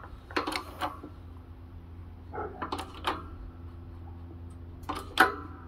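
A 12-ton shop press driving a new bearing into a scooter's aluminium transmission case: scattered metallic clicks and knocks over a steady low hum, the sharpest knock about five seconds in, as the bearing is pressed home until it bottoms out.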